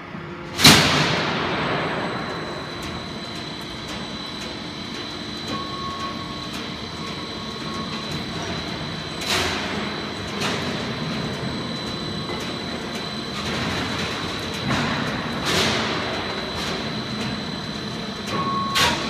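Heavy-gauge purlin roll forming machine running, with a steady mechanical hum and a thin high whine. Sharp metallic bangs come over it, the loudest about half a second in and smaller ones around nine, fifteen and nineteen seconds.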